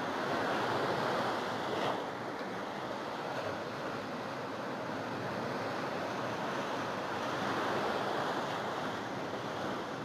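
Sea surf breaking and washing up the sand to a sea wall at high tide, a steady rushing that swells louder twice as waves come in.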